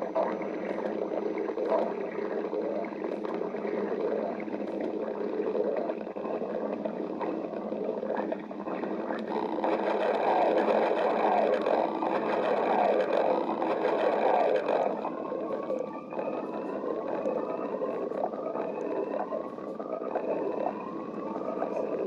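Stomach growling: continuous gurgling and rumbling, louder about ten seconds in, then a run of short rising squeaky whines, about one a second, near the end.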